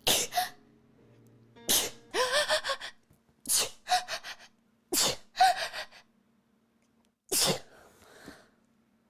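A person sneezing again and again: about five sudden, explosive sneezes spaced one to two seconds apart, some with a short voiced cry.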